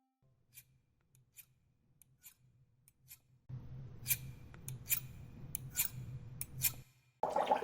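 Scissors snipping, a series of short sharp cuts at an uneven pace. A low steady hum comes in about halfway through and stops with the snips shortly before the end.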